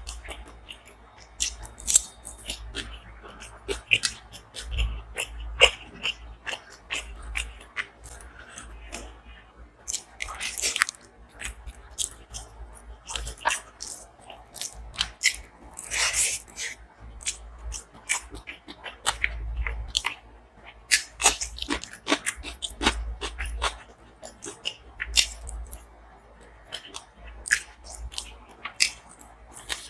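Close-miked chewing and biting, with many irregular crunches and mouth clicks.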